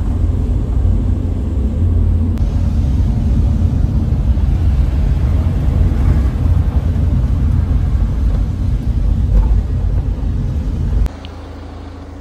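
Minibus running on the road, heard from inside the cabin: a steady low rumble that drops sharply near the end.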